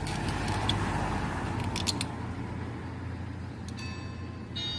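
A car engine idling with a steady low hum, with a few sharp metallic clicks in the first two seconds as jumper-cable clamps are worked onto a battery terminal during a jump start.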